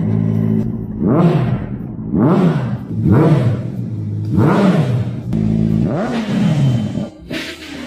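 Honda CBR600RR's inline-four engine idling and being blipped on the throttle six times, about once a second, each rev rising and dropping quickly back to idle.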